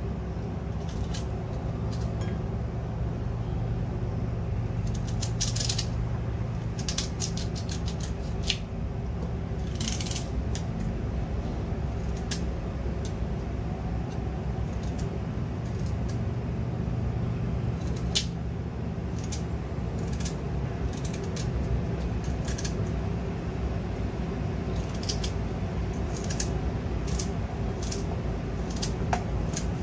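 Small knife slicing pieces off a raw beetroot held in the hand, with scattered short clicks as the cuts go through and slices drop onto a ceramic plate. A steady low hum runs underneath.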